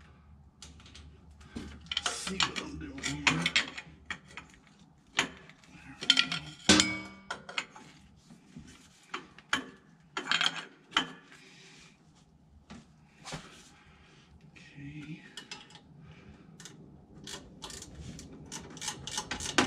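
Hand ratchet tightening fasteners on the generator's fan housing: short runs of ratchet clicks and clinks of tool on metal, with a quick run of clicks near the end.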